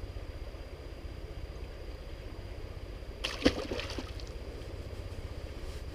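A large sucker fish released into the river: a brief splash and slosh of water about three and a half seconds in, over a steady low rumble.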